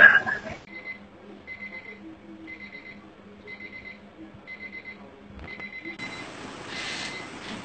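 Electronic beeping, short trills of rapid high beeps about once a second, over a faint steady hum. It starts just after a loud brief sound at the very start and stops about five and a half seconds in, after which a steady hiss takes over.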